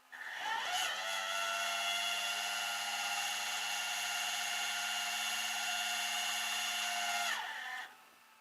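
A small electric motor whining: it spins up quickly, runs steadily for about seven seconds, then winds down and stops near the end.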